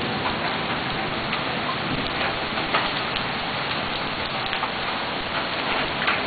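Hailstorm: a steady hiss of heavy rain with scattered sharp clicks of hailstones striking hard surfaces.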